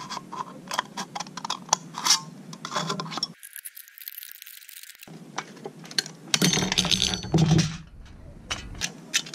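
Scissors snipping and cutting through a thin aluminium drink can, with the cut sheet metal crinkling and light metallic clinks, louder for a second or so a little past the middle.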